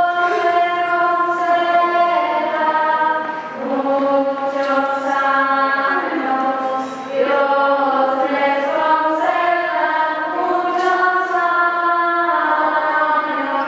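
Choir of several voices singing a slow hymn in held chords that change every second or two.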